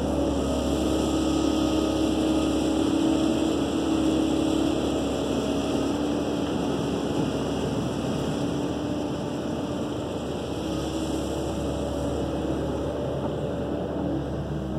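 Kobelco 135SR excavator's diesel engine running steadily under working load while the arm digs and the upper body swings.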